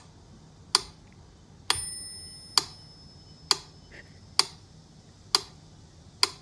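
Sharp, evenly spaced ticks about once a second, seven in all. Two of them are followed by a brief bell-like ring.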